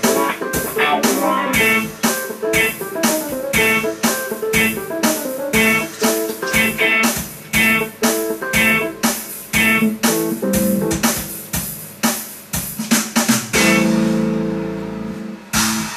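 Background music: a guitar-led instrumental over a steady drum beat of about two strokes a second, breaking near the end into a held chord that rings out before a new phrase starts.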